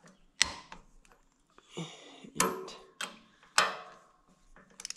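Click-type torque wrench and socket on the cylinder head bolts of an International Harvester C123 engine. It makes a string of sharp metallic clicks about half a second to a second apart, with a quick run of ratchet ticks near the end. The head bolts are being pulled down to 20 foot-pounds on the first of several tightening passes.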